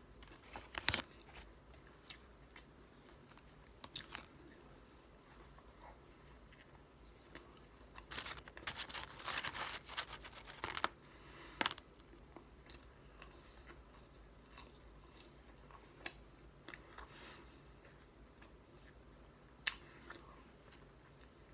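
Close-up eating sounds: biting and chewing a McDonald's Filet-O-Fish sandwich, with scattered sharp mouth clicks. About eight seconds in comes a few seconds of denser handling noise as a hand reaches into the fries and paper packaging.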